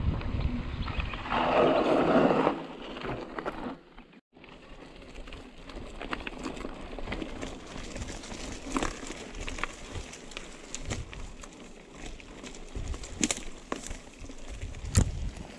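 Trek Remedy mountain bike being ridden on a dirt forest trail, heard through an action camera's microphone: wind buffets the microphone for the first couple of seconds, then after a brief dropout there is quieter tyre crunch with scattered clicks and rattles from the bike.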